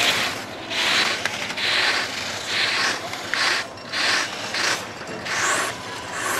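Slalom skis carving turns on hard snow: the edges scrape on each turn, giving a rhythmic hissing scrape just under a second apart.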